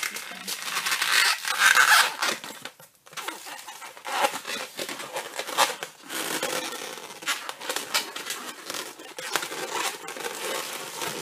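260Q latex modelling balloon rubbing and squeaking in the hands as it is twisted and folded into shape. The loudest stretch is about one to two seconds in, with a short lull about three seconds in.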